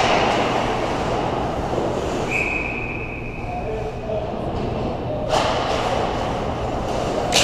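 Ice hockey rink play: steady scraping of skates on ice with stick and puck clatter, a brief high steady tone a little after two seconds in, and sharp impacts about five seconds in and again at the end.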